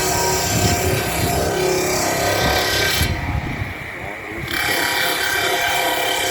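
A sawmill bench saw running and cutting timber: a loud, steady rasping whine. About three seconds in the high cutting noise drops away for a second or so while the machine keeps running, then the cutting resumes.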